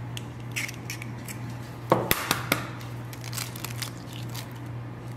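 Eggshells being cracked and pulled apart over a bowl: a few sharp cracks about two seconds in, with lighter crackles of shell elsewhere, over a steady low hum.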